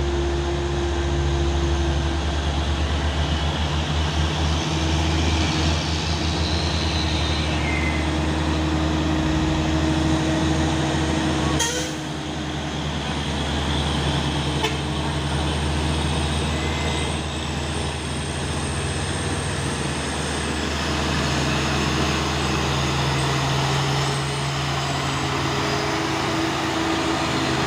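Heavy truck engine running steadily and loudly, with one sharp click about twelve seconds in.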